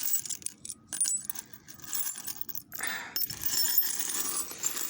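A pile of loose metal nuts and bolts clinking and jingling against each other as they are stirred by hand, with many irregular sharp metallic clicks.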